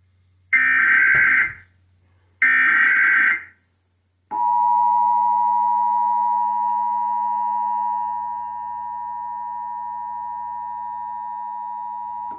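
Emergency Alert System test tones: two roughly one-second bursts of screechy digital data-header tones, then, about four seconds in, the steady two-tone EAS attention signal held for about eight seconds.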